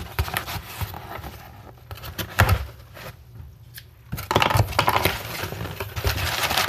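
A cardboard shipping box being opened by hand: scrapes and a sharp knock as the flaps are pulled up, then crumpled brown kraft packing paper crinkling continuously as hands dig through it from about four seconds in.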